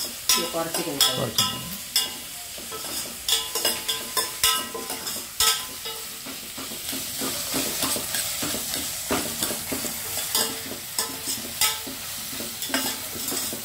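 Sliced onions sizzling in hot oil in a stainless steel pot while a metal spoon stirs them, scraping and clinking against the pot several times a second. The onions are being sautéed toward golden brown.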